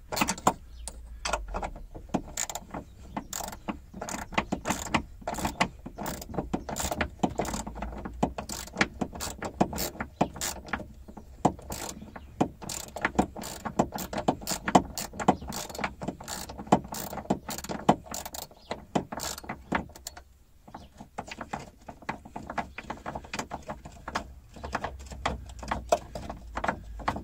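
Hand ratchet clicking in quick back-and-forth strokes as it spins a nut off a BMW E36 rear shock absorber's top mount. There is a brief pause about twenty seconds in.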